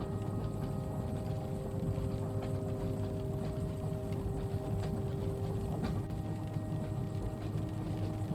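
Train carriage ambience: a steady low rumble of the train running, with a steady hum over it and scattered light ticks.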